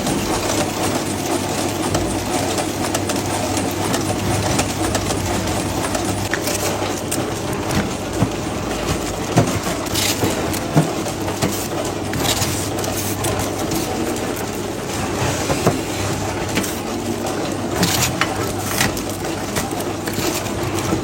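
Factory machinery running steadily with a low hum, broken by scattered sharp clicks and knocks.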